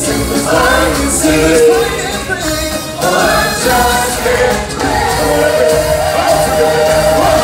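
Stage-show singers performing a song over musical accompaniment, ending on a long held note.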